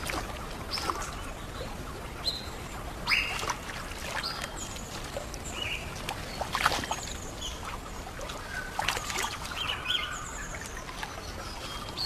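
Birds chirping in short high notes over a steady hiss of running river water, with a few sharp knocks and splashes from a platypus being handled in a net in the water.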